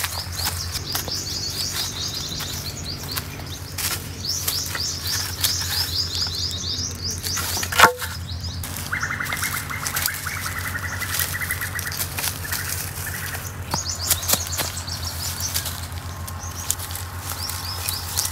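Birds chattering in rapid repeated phrases, with a lower trill for a few seconds in the middle, over the crackle and snapping of dry twigs being gathered from the ground; one sharp, loud snap comes about eight seconds in. A steady low hum runs underneath.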